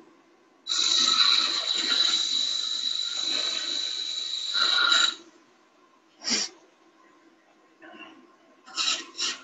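Wood lathe turning: a turning tool cutting the spinning wooden workpiece in one long cut of about four seconds, then several short touches near the end, over the steady low hum of the lathe.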